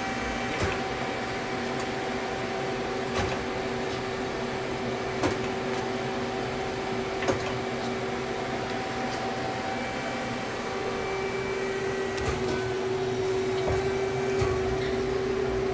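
Steady mechanical hum of a powered-up Femco Durga 25E CNC lathe standing idle with its spindle stopped, with a few sharp clicks scattered through. One tone in the hum grows stronger about ten seconds in.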